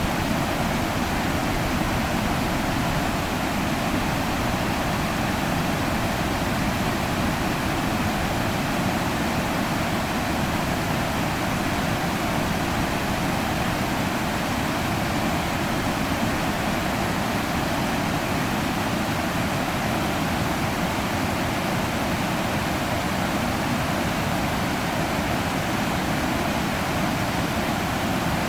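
River water rushing steadily, an even, unbroken hiss and rumble of flowing water.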